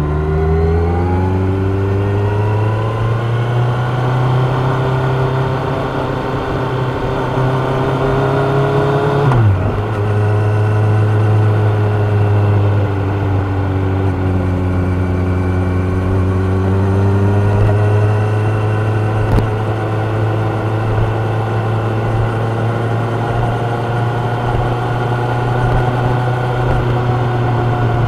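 Kawasaki Ninja 1000's inline-four engine pulling hard with the revs climbing. About nine seconds in it shifts up with a sudden drop in pitch, then runs steadily at cruising speed, the revs easing down and back up a little.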